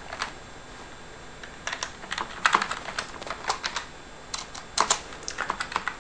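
Typing on a computer keyboard: a single keystroke near the start, then a quick, irregular run of key clicks from about a second and a half in, a few of them struck harder.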